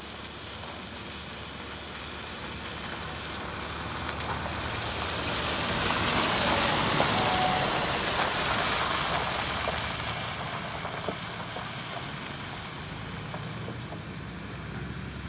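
2009 Scania P420 tipper truck driving past on a wet gravel road. Its diesel engine and the hiss of tyres on gravel grow louder to a peak about seven seconds in as it passes close, then fade as it drives away.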